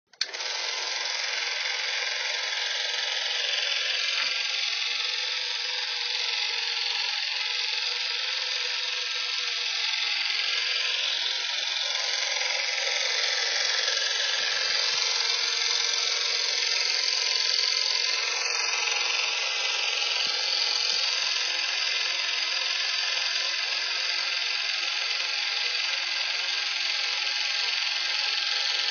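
Film projector running steadily.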